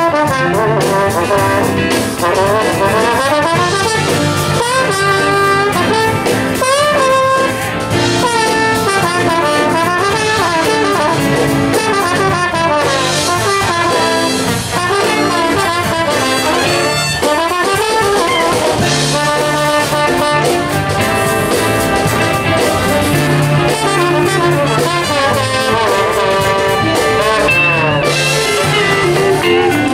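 Jazz big band playing, with the brass section of trumpets and trombones out front over saxophones and drum kit.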